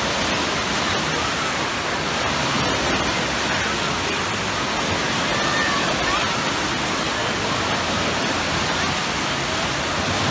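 Wave-pool waves rolling in and breaking, a steady wash of churning water, with distant voices of the swimmers faintly mixed in.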